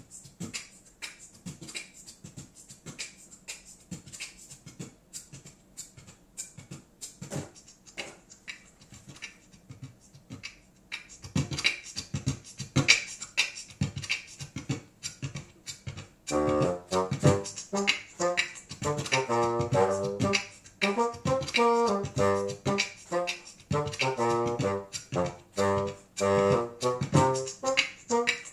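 Looped percussive clicks and pops building up a funk groove, growing denser partway through; about halfway through a bassoon joins with short, detached notes layered over the loop.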